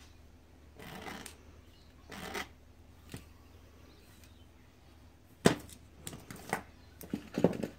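A blade scoring a floor tile in two short scraping strokes, then a sharp snap about five and a half seconds in and several clicks and knocks as the tile breaks along the scratch line and is handled.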